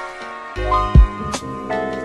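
Background music: a gentle instrumental with held notes and a deep low beat about a second in.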